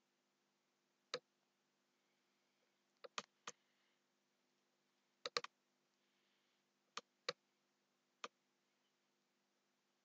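Computer mouse clicking: about ten sharp clicks, some in quick pairs or threes, against a faint steady hum in a quiet room.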